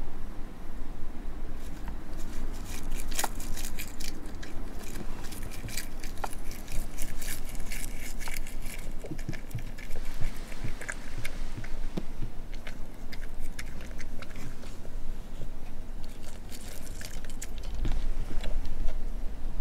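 Tabby cat chewing and licking bonito treats, a run of small wet clicks and crunches from its mouth, thickest in the first half and again near the end.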